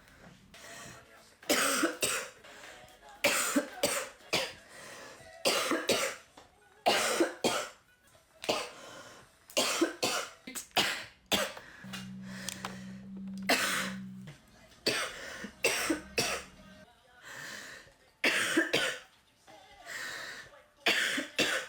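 A young woman coughing over and over because she is ill, a single cough or a short run of coughs every second or so.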